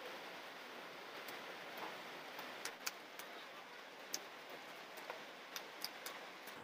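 Quiet eating sounds from khichdi eaten by hand off a steel plate: scattered small clicks, more of them in the second half, over a steady hiss.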